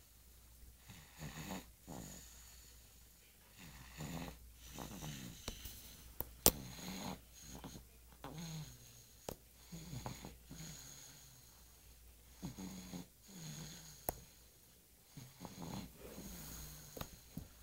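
Snoring of a sleeping six-month-old: a low snore on each breath, roughly every two to three seconds, with a few sharp clicks between them.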